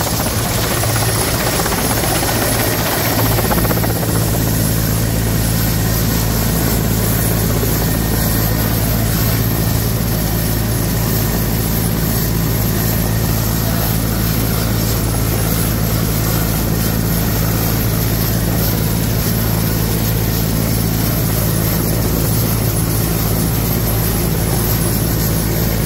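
Indian Air Force helicopter running on the ground with its rotors turning: a loud, steady drone with a constant high turbine whine.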